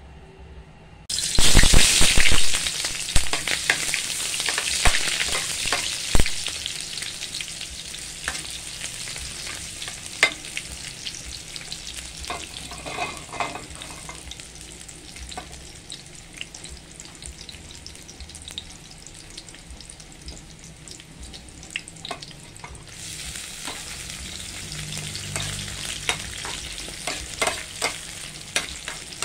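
Sliced onions dropped into hot oil in a frying pan. A sudden loud sizzle about a second in settles into steady frying with scattered crackles and pops. The sizzle grows louder again near the end, once tomato pieces are in the pan with the onions.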